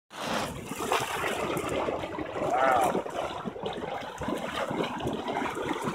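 Boiling sulfur mud pot: hot grey mud churning and bubbling continuously, with many irregular quick pops and gurgles as gas breaks through the surface.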